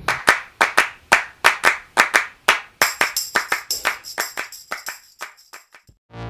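A quick run of clap-like percussive hits, about four a second, fading away toward the end, with a high ringing tone held through the middle part: an outro sound effect or music.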